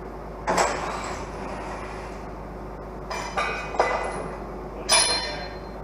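A handful of sharp metal-on-metal clanks on the dozer being stripped down, each ringing briefly, one about half a second in, a cluster around three to four seconds, and the loudest near the end, over a faint steady hum.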